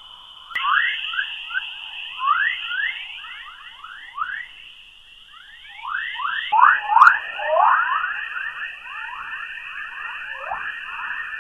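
Sonified space plasma-wave recording: a dense stream of short rising whistling chirps, several a second, over a steady high hiss. It shifts abruptly about half a second in and again about six and a half seconds in, like spliced recordings, and the chirps thicken in the second half.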